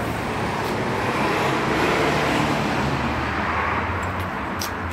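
Street traffic noise: a passing vehicle's engine and tyre noise swells to its loudest about two seconds in and then eases off.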